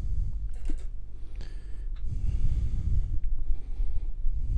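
A person breathing close to the microphone, a few slow breaths, over a steady low hum, with a couple of faint light clicks in the first second and a half.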